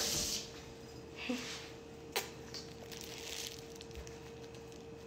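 Running water from a kitchen tap, which stops just after the start. Then faint handling noises, small clicks and rustles, with one sharp click about two seconds in, over a faint steady hum.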